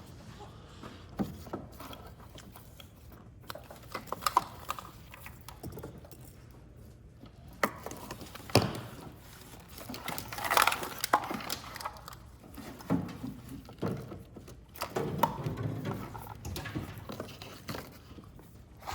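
Scattered clicks, knocks and rustles of a wiring harness and its plastic plugs being handled and moved around, with a few louder knocks about 8 to 11 seconds in.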